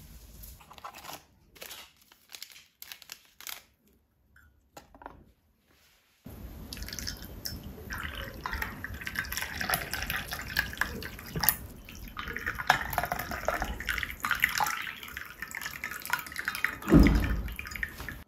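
Hot water poured in a thin stream into porcelain teacups holding herbal tea bags: a steady splashing pour that starts about six seconds in, with a low thump near the end. Before the pour there are a few scattered light taps.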